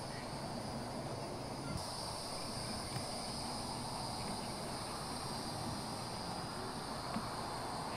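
Evening insect chorus: steady high-pitched chirring of crickets at several pitches, one of them growing louder about two seconds in.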